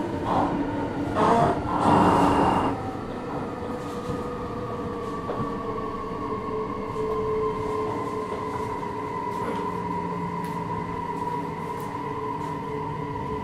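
JR Hokkaido 733 series electric train heard from inside the car while running: a louder rumble of wheels on rail for the first few seconds, then a steadier run with the traction motors' whine slowly falling in pitch as the train slows.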